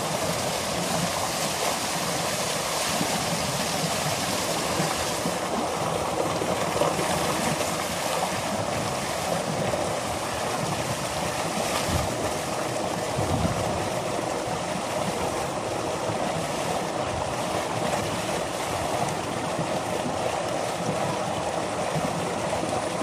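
Tubewell outflow: a thick jet of water gushing steadily from a large pipe into a concrete tank, churning and splashing over a person sitting in it.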